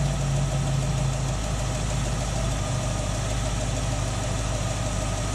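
1967 Ford Mustang engine idling steadily on a freshly rebuilt Holley 2300 two-barrel carburetor while an idle mixture screw is turned in, leaning the mixture so the idle begins to drop toward a stumble.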